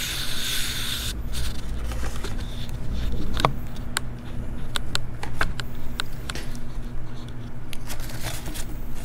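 A sheet of paper rustling as it is laid down and handled over engine parts, loudest in the first second, followed by scattered light clicks and taps, over a steady low hum.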